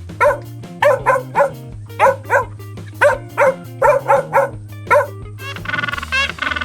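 A dog barking, about a dozen short barks in irregular pairs and threes, over background music. Near the end a different, faster run of animal calls begins.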